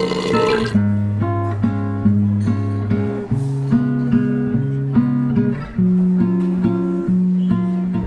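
Acoustic guitar music: plucked notes over a steady low bass line, with a short burst of noise right at the start.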